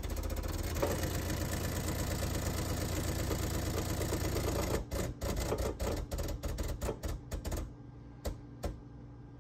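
Gaggia Classic Pro's vibratory pump, Gaggiuino-controlled, running with a fast steady buzz, then cutting in and out in short pulses for a few seconds before stopping. Two clicks follow near the end.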